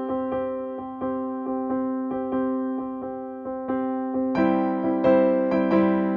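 Background piano music: a gentle keyboard tune of evenly struck notes, two or three a second. It grows louder and fuller about four seconds in.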